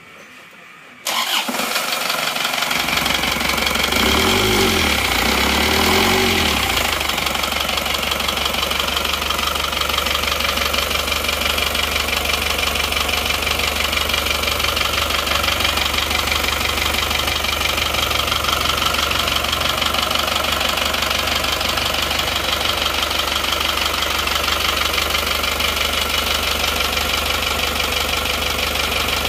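Isuzu Panther's turbocharged four-cylinder diesel engine started on the starter about a second in, running unevenly for a few seconds before settling into a steady idle. Its note is rough, which the mechanic puts down to newly fitted non-original piston rings sold as made in Japan.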